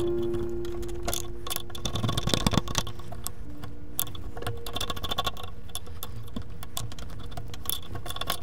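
Screwdriver tip scraping and picking at the old wood packed in an axe head's eye: an irregular run of small clicks and scratches, busiest about two seconds in, over background music with held notes.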